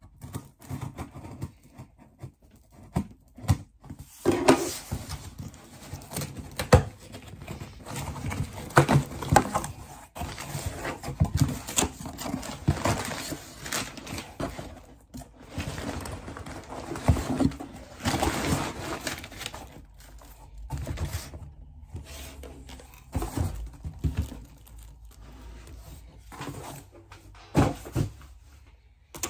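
Cardboard packaging being torn open and handled by hand: irregular rustling with scattered knocks and clicks.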